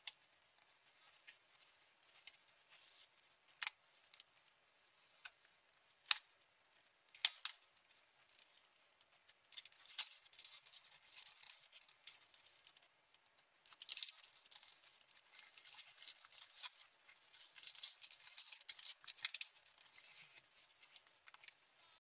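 Paper rustling and crinkling as hands fold and turn a small folded-paper puzzle. A few sharp crinkles stand out in the first half, and the rustling grows busier and more continuous in the second half.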